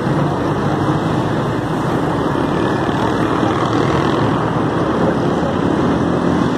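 Steady rumble of road traffic, engines and tyres blending into a continuous noise with no single event standing out.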